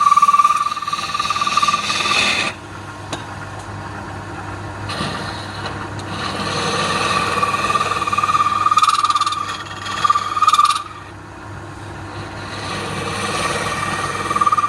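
Wood lathe running with a steady hum, while a turning tool cuts the spinning wood in three passes that each give a loud, steady, high-pitched whine with scraping noise, broken by two short pauses where only the machine hum is left.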